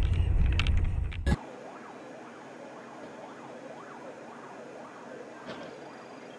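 Loud vehicle road rumble for about the first second, cut off abruptly, then a quieter emergency-vehicle siren sweeping up and down in pitch over and over, a little faster than once a second.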